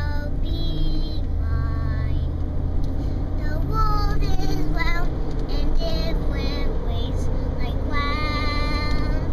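A young girl singing in a high voice, several phrases with long held notes, over the steady low rumble of a car driving, heard inside the car.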